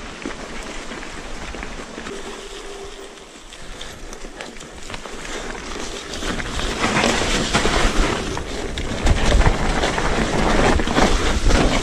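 Electric mountain bike rolling down a leaf-strewn, rocky trail: tyre noise over leaves and stones with the bike rattling over the bumps, louder and with more clatter from about halfway through.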